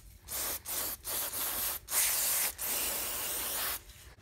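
Aerosol spray can spraying onto an aluminium rear main seal housing in about five short hissing bursts, the last one over a second long.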